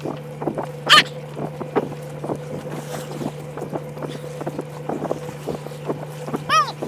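Fishing boat's engine running steadily under wind noise, with light knocks and rubbing as fishing lines are hauled in by hand over the wooden gunwale. A sharp sound stands out about a second in, and a short rising-falling squeal comes near the end.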